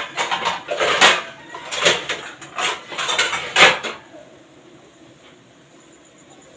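A quick run of sharp clattering knocks, as hard household objects are handled, stopping about four seconds in.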